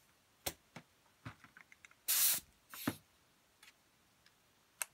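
Two short bursts of compressed-air hiss from a pneumatic impact wrench, about two seconds in, between clicks and clinks of metal tools and parts on a steel workbench.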